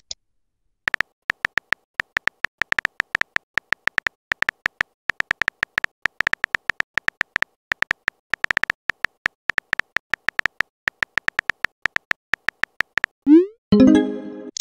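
Phone keyboard tap clicks, rapid and uneven, as a text message is typed out for about twelve seconds. Near the end a short rising swoosh and a brief chime sound as a message is sent.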